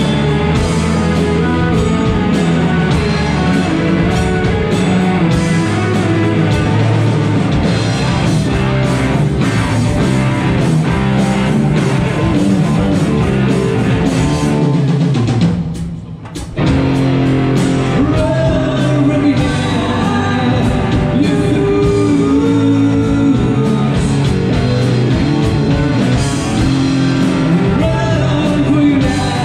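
Live heavy rock band playing, with electric guitars, bass and drum kit and a lead singer. About halfway through, the band drops out briefly for about a second, then comes back in.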